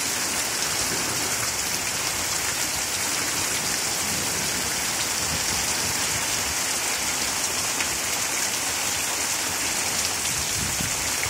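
Heavy rain pouring steadily, an even dense hiss with no breaks.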